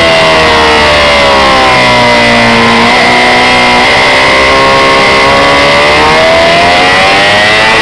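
Honda CB600F Hornet's inline-four engine running on the move: its note falls for about three seconds as the rider rolls off, then rises steadily under acceleration until near the end. Loud wind rush over the bike-mounted microphone lies under it.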